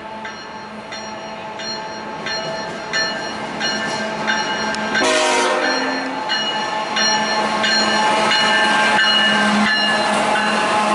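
Two GE ET44AC Tier 4 freight locomotives approaching and passing close, their V12 diesel engines running with a steady drone that grows louder as they near. A bell rings steadily about every two-thirds of a second throughout, and there is a brief horn sound about five seconds in.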